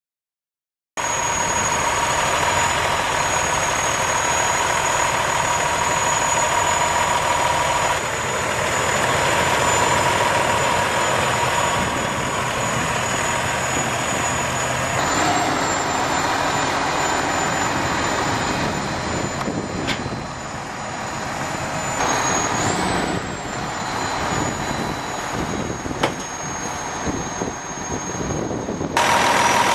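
A 2007 Peterbilt 357 roll-off truck's Cummins ISM 10.8 L diesel engine running, starting about a second in, with steady high-pitched whines over the engine. The sound changes abruptly a few times, about halfway, near three-quarters and near the end.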